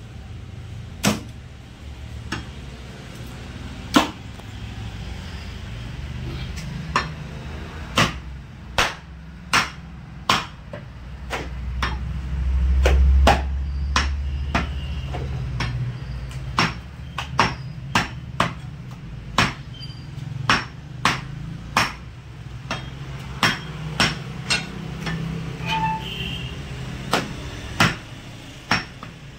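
Meat cleaver chopping goat meat on a wooden stump chopping block: repeated sharp chops at an irregular pace, roughly one a second.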